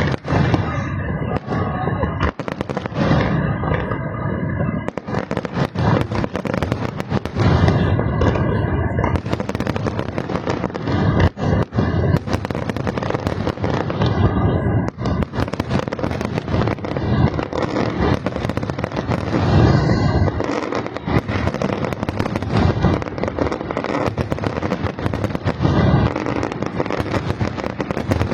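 Aerial fireworks going off in a dense, unbroken series of bangs, many shells bursting close together in a big display.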